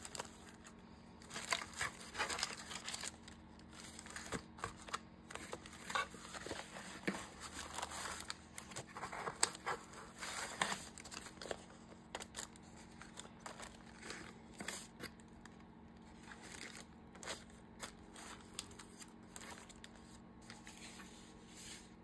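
Paper being handled: irregular rustling and crinkling with short, crisp bursts, thickest in the first half and thinning out later.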